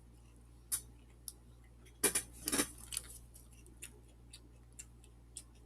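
Scattered light clicks and rustles of snack packaging being handled, with a short denser crinkly patch about two seconds in.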